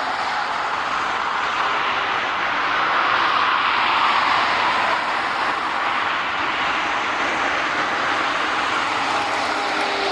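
Jet engines of a Boeing 737-400 (CFM56 turbofans) running, heard as a steady rushing noise that swells slightly midway, with a faint whine.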